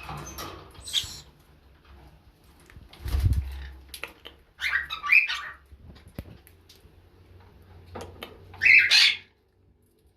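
Captive farm birds calling, with two loud, harsh squawk-like calls, about halfway through and near the end, and a dull thump about three seconds in.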